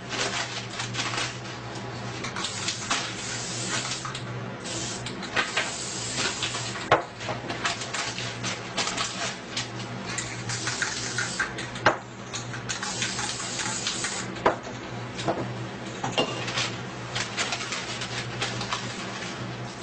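Clattering and scraping of small hard objects: many clicks and taps with hissy scrapes, and a few sharper knocks, over a steady low hum.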